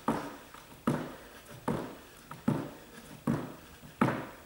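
Trainers landing on a wooden sports-hall floor while running on the spot with high knees: about six thuds, one every 0.8 s or so, with softer taps between. Each thud has a short echo.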